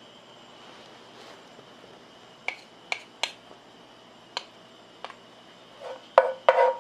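Minced garlic frying faintly in oil in a frying pan, then several sharp clicks of utensils tapping the small dish and pan. Near the end a wooden spatula knocks and stirs in the pan.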